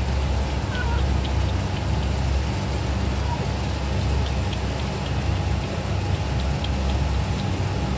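Steady low background rumble, with a few faint, brief high chirps over it.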